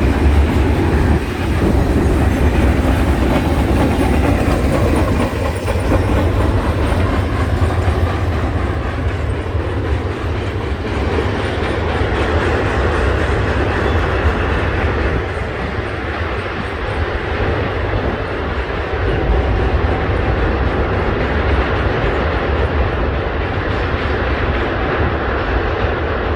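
Freight cars of a train rolling past, a steady rumble of steel wheels on the rail with some clickety-clack over the joints.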